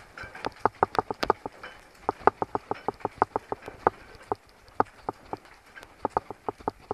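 Mountain bike tyres bumping over railroad ties, a rapid, regular knocking of about six knocks a second, with a couple of short pauses.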